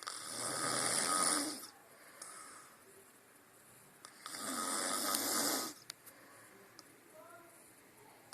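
A sleeping man snoring: two long snores about four seconds apart, each lasting well over a second.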